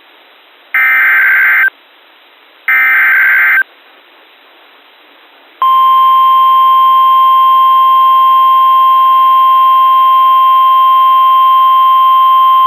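Emergency alert SAME header data: two shrill warbling digital bursts about a second long and a second apart. After about two seconds of quiet, a steady loud single-pitch alarm tone, the NOAA Weather Radio 1050 Hz warning alarm, starts about halfway and holds. This is the lead-in that opens a new warning broadcast.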